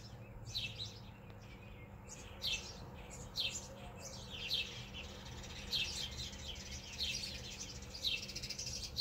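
A flock of sparrows chirping: many short, high chirps from several birds, overlapping at an irregular pace.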